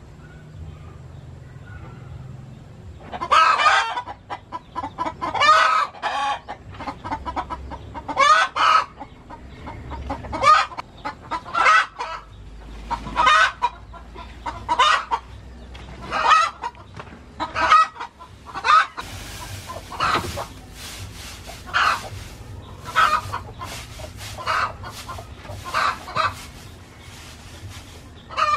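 Chicken clucking repeatedly, starting about three seconds in and going on with short calls roughly once a second.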